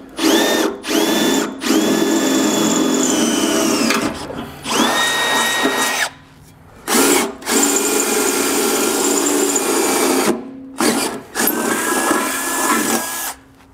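Cordless drill with a quarter-inch bit drilling through a steel pickup frame in several bursts with short pauses, its motor whine climbing as it spins up and dropping away as each burst stops. Both marked holes are drilled in turn.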